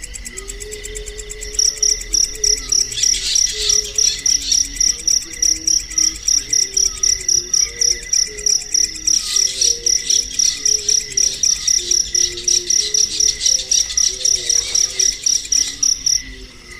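Cricket chirping in a steady, even rhythm of about four high chirps a second, starting about a second and a half in and stopping shortly before the end, over a faint low melody.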